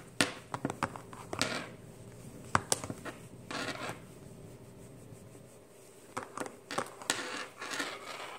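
Handling noises: scattered sharp clicks and several short scratchy rustles as a screen-cleaning cloth and a tablet are picked up and handled.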